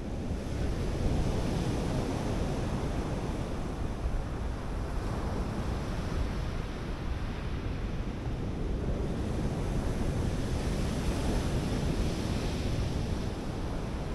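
Sea surf breaking and washing up a beach in a steady rush that swells and ebbs over several seconds, with wind buffeting the microphone as a low rumble.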